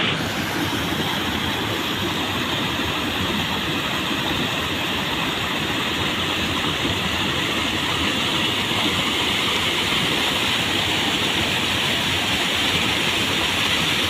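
Water rushing over a small concrete weir, a steady unbroken noise.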